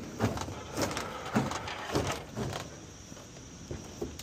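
Wooden pallet under a boxed outdoor heat pump unit knocking and scraping as the box is rocked and walked out of a van onto the pavement, a knock about every half second, dying away after about two and a half seconds.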